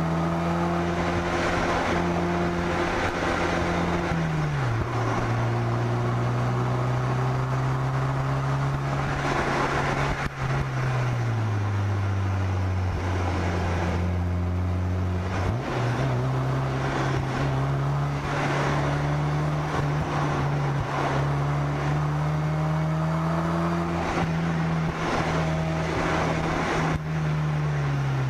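Car engine driving at moderate speed along a winding road, heard from the car itself over steady road and wind noise. Its note drops a few seconds in and again near the middle, jumps up soon after, climbs slowly and falls again near the end, following the throttle and gear changes.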